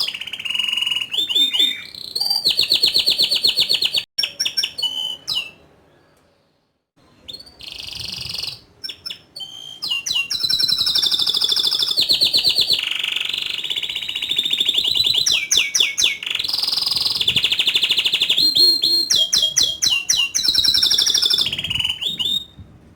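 Domestic canary singing: long, high-pitched rolling trills mixed with quick chirps, with a brief pause about six seconds in.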